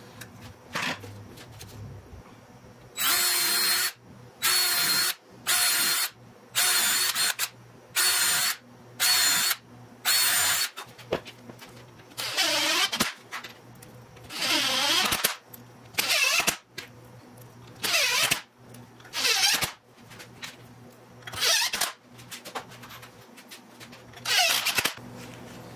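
Cordless drill running in short bursts. First come about seven quick runs at an even pitch, pre-drilling and countersinking holes in a wooden fence. Then come a series of longer runs whose pitch sags and recovers as 1¼-inch screws are driven through the wood.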